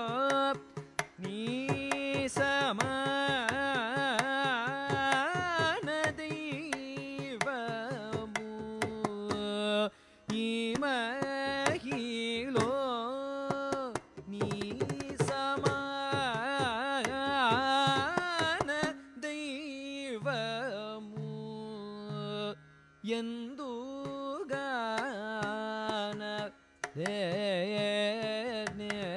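Carnatic music in raga Manji, set to mishra chapu tala: a richly ornamented melody that glides and bends between notes, over steady hand-drum strokes, with a few brief breaks in the line.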